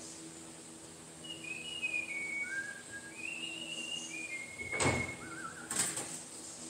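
A man whistles a short tune in steady, stepping notes. About five seconds in come two loud metallic clanks from the manual sheet-metal bending brake and the sheet steel as a fold is made.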